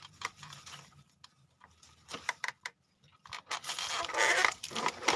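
Lemongrass leaves and stalks rustling and scraping as a hand works through the clump: scattered small clicks and snaps at first, then a denser stretch of rustling from about halfway in.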